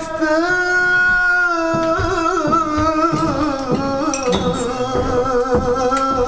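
Black Sea kemençe (Trabzon-style bowed lyra) playing a melody, holding a wavering note at first and then moving through a run of notes, with low knocks under it from about two seconds in.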